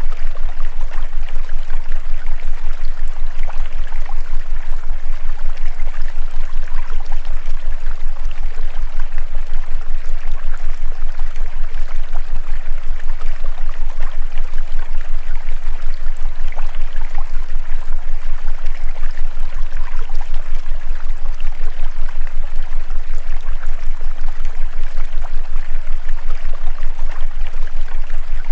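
Steady rushing sound like a running stream, with a loud low tone underneath that pulses rapidly and evenly. This is typical of the masking layer that covers the hidden affirmations in a subliminal track.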